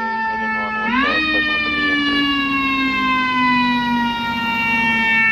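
Fire engine siren sounding continuously: it is pushed up in pitch about a second in, then winds slowly down.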